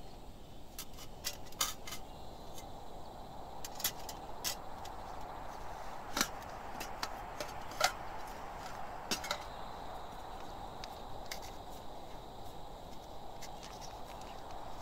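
Small metal tin and containers being handled: a scattered run of light clicks and clinks as lids and tins are opened and moved, over a steady background noise.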